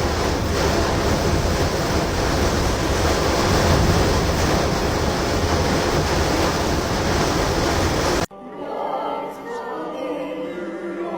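Loud, steady storm wind rushing and buffeting the microphone in a tornado. It cuts off abruptly about eight seconds in, giving way to a much quieter passage with faint tones.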